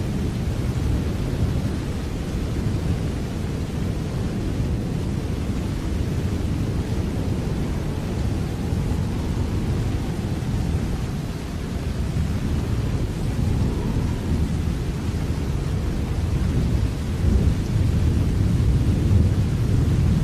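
Steady rain with a deep, continuous rumble underneath, growing a little louder near the end.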